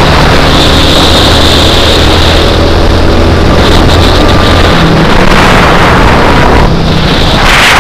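Go-kart engine running under throttle, heard from the driver's seat, under a loud haze of wind and road noise; the low engine note changes about halfway through.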